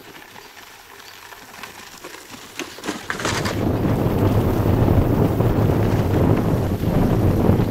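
Faint outdoor quiet with a few light clicks, then about three seconds in, loud wind noise buffeting the microphone of a camera moving along behind a cyclist.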